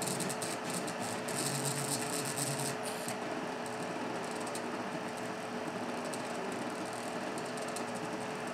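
Original beta Printrbot 3D printer running a print: stepper motors whirring as the extruder head moves over the part, over a steady hum. A fine, dense high ticking eases off about three seconds in.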